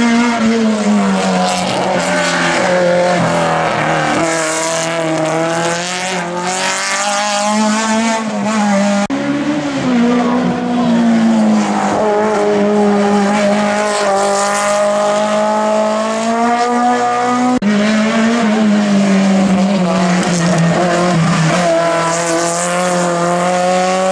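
Race car engines running hard through a slalom, pitch repeatedly rising and falling as they accelerate and lift off, with tyres squealing at times. The sound changes abruptly twice, about nine and eighteen seconds in, as one car gives way to another.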